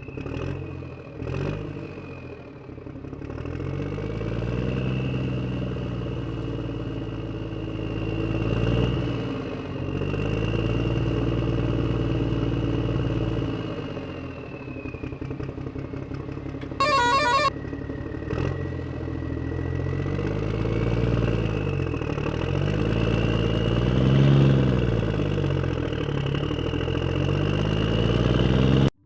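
Engine of a heavy machine running and revving up and down several times, with a steady high whine above it and one brief harsh burst partway through.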